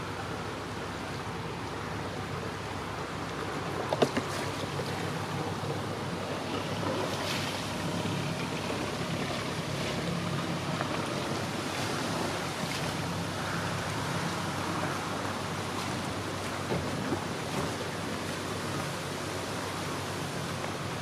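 Hire cruiser's inboard engine running with a low steady hum while the boat manoeuvres, under a wash of wind and lapping river water. A single sharp knock about four seconds in.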